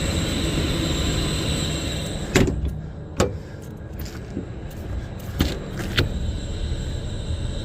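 Sheet-metal access panel of a rooftop makeup air unit being opened: a steady mechanical whirr for about two seconds, then a series of separate sharp metal clicks and knocks as the panel is handled.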